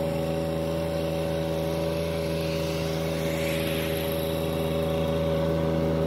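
Compact tractor's engine running steadily at a constant speed, an even drone.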